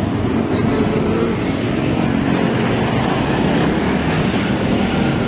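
Street traffic noise: vehicle engines running close by, a steady loud sound that does not let up.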